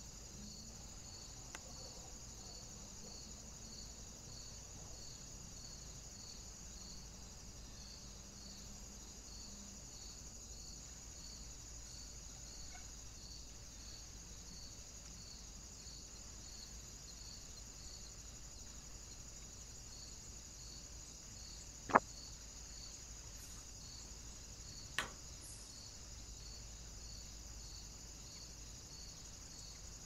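Faint insect chorus in summer woodland: a steady high hum with a regular chirp repeating about once or twice a second. Two sharp clicks stand out, one about two-thirds of the way in and a fainter one three seconds later.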